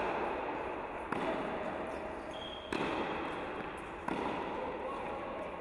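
Tennis rally on an indoor court: rackets striking the ball about every second and a half, three hits in all, each ringing on in the hall's echo.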